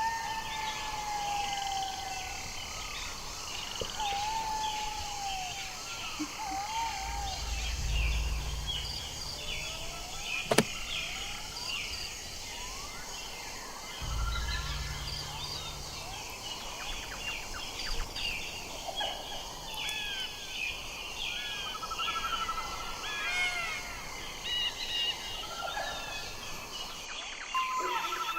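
Outdoor chorus of many overlapping high chirps and wavering, gliding calls, with a longer falling call at the start. Two low rumbles and one sharp click are heard partway through.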